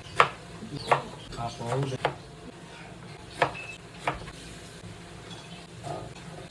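Kitchen utensils knocking and clinking against dishes, five sharp knocks at uneven intervals during the first four seconds.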